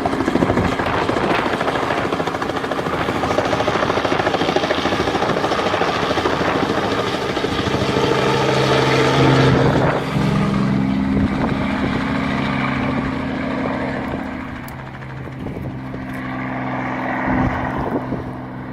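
Helicopter flying overhead, its rotor chopping loudly with a steady engine hum under it, growing quieter over the last few seconds.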